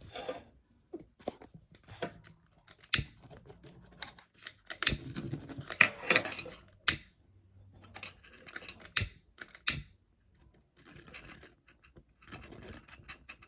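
Hands working seatbelt webbing and small tools at close range: scattered sharp clicks and taps, with soft scratching and rustling of the fabric between them.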